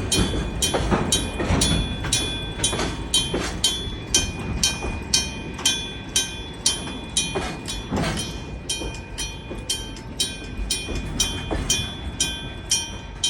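Electric gong-type level-crossing bell striking about twice a second, each stroke ringing on, over the low rumble of a slow freight train, which fades toward the end.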